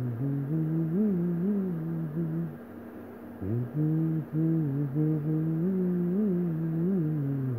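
A person humming a slow tune in two long, low phrases, with a short pause about three seconds in.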